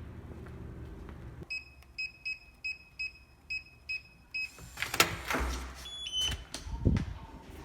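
An electronic keypad beeps once per button press, about nine short identical beeps at an uneven pace. Clicks and knocks and a few short high electronic tones follow.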